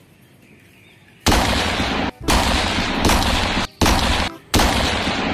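Automatic-rifle gunfire sound effect for a toy M4 rifle: after a quiet first second, four long rapid-fire bursts with short breaks between them.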